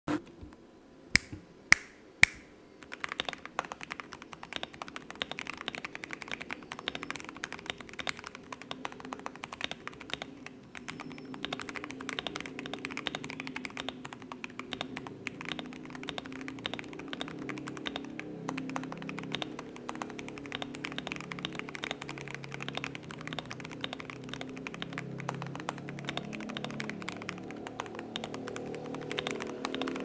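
Mechanical keyboard typed on fast and without pause, a dense run of deep, thocky key clacks. Three louder, sharp clicks come in the first couple of seconds, before the steady typing begins about three seconds in.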